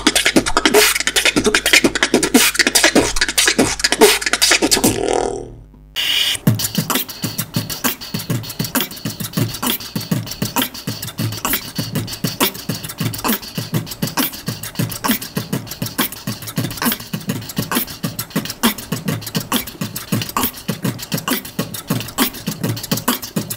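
Human beatboxing: a fast, dense run of percussive mouth sounds that breaks off about five and a half seconds in. After a brief pause, a steady beatbox rhythm runs on.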